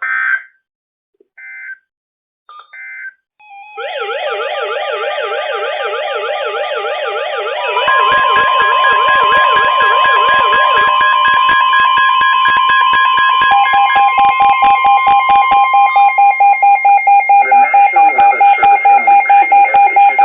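Weather radio emergency alert for a new warning: three short digital data bursts, then several alert alarms sounding at once — a fast warbling sweep, from about 8 seconds in a steady tone near 1 kHz (the 1050 Hz warning alarm tone), and rapid pulsing beeps near the end.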